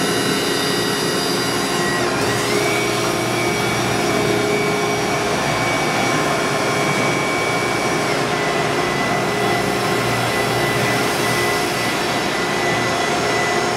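Tsugami BW12-III Swiss-type CNC screw machine running a cycle: a steady mechanical hum and whine over a hiss. A whining tone steps up in pitch about two seconds in and drops back about six seconds later.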